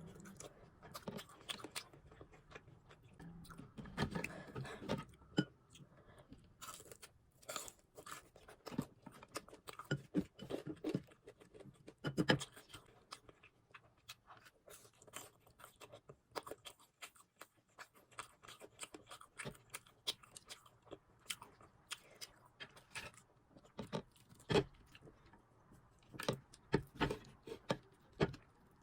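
Close-miked chewing and biting of crispy fried food, with irregular crunches and small clicks throughout.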